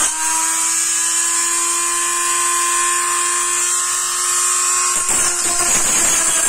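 Handheld rotary tool with a sanding bit, running free with a steady whine for about five seconds, then grinding more roughly as the bit goes back onto the coconut shell, sanding the inside of the bowl.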